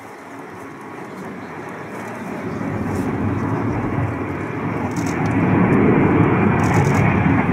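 Boeing KC-707 tanker's four jet engines passing low overhead: a deep, steady jet rumble that grows steadily louder as the aircraft approaches.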